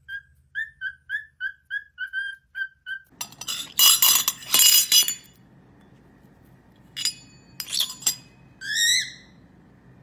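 A cockatiel whistles a quick string of about a dozen short, even notes. Then a steel lid clinks and clatters against a ceramic food bowl in a run of sharp strokes, and twice more a few seconds later. Near the end a cockatiel gives a short whistle that rises then drops.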